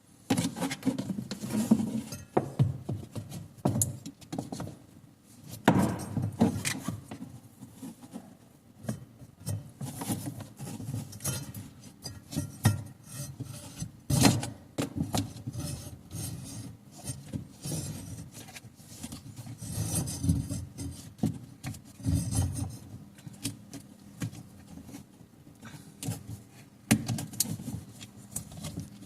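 Irregular knocks, scrapes and clinks of tools and metal or plastic parts being handled and worked on a washing machine.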